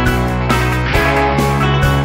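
Background instrumental music with a steady beat about twice a second.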